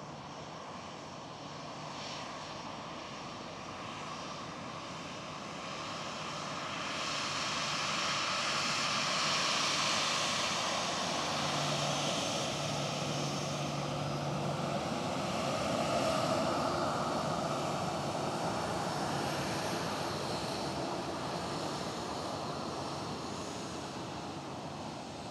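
Southwest Airlines Boeing 737 jet engines as the airliner arrives: a broad jet noise that swells for several seconds, stays loudest for about ten seconds and then slowly fades.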